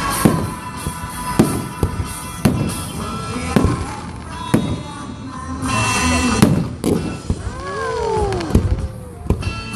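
Aerial fireworks going off with repeated sharp bangs, mixed with loud music played over a sound system.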